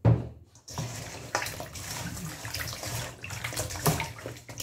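Hands sloshing and rubbing whole tamban sardines in salted water in a stainless steel bowl, washing them in salt. A sharp knock at the very start, then continuous splashing with small clicks.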